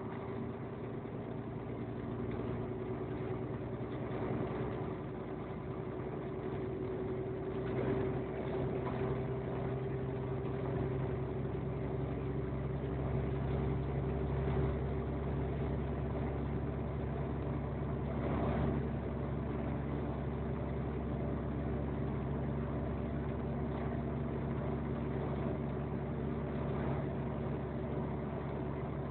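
Vehicle engine droning steadily while driving, heard from inside the cab, with a couple of brief swells of noise about eight and eighteen seconds in.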